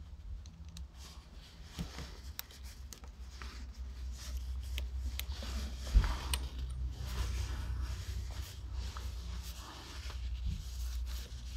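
Small metal clicks and rattles of shift-knob parts and set screws being handled, with one louder knock about six seconds in, over a steady low rumble.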